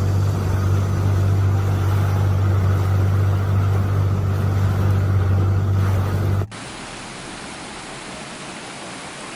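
A steady, loud low motor hum with a rushing wash over it, cut off abruptly about two-thirds of the way through. It gives way to a quieter, even rush of flowing water.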